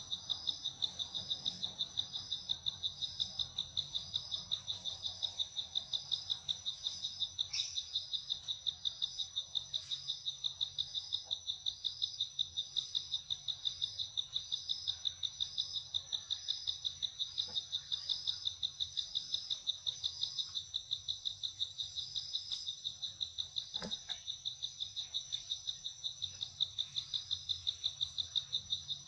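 Insects trilling steadily at a high pitch in an even, pulsing rhythm, with a faint click once or twice.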